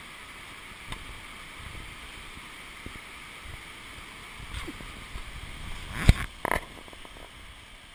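Steady rush of a river running close by, with footsteps on a muddy trail, and two sharp knocks about six seconds in.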